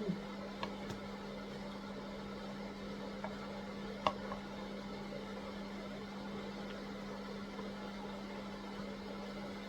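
Steady low electrical hum over a light background hiss, with a few small clicks, the sharpest about four seconds in.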